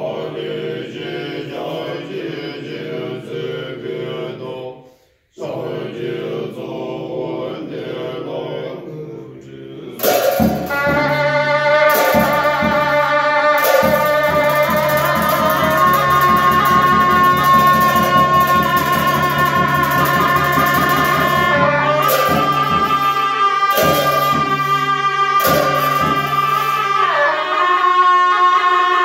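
Tibetan monastic ritual music. For the first ten seconds monks chant in deep low voices, with a short break midway. Then a pair of gyaling, the Tibetan double-reed horns, come in loudly with a sustained wavering melody that steps in pitch several times, over strokes of the nga frame drum and clashes of cymbals.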